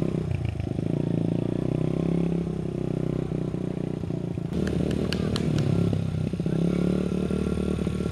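Small dirt bike engine running steadily at low speed as the bike is ridden slowly, with a few sharp clicks about halfway through.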